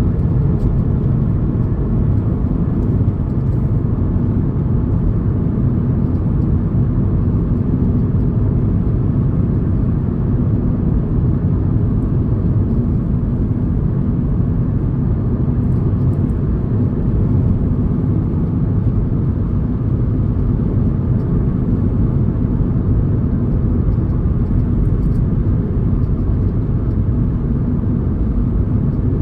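Steady road and engine rumble of a car being driven, even and unbroken throughout.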